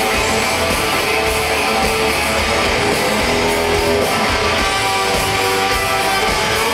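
Hard rock band playing live, loud and steady, with distorted electric guitars to the fore.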